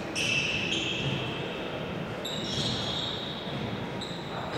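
Handball play on an indoor court in an echoing hall: several short, high squeaks of players' shoes on the court floor, with a ball bouncing.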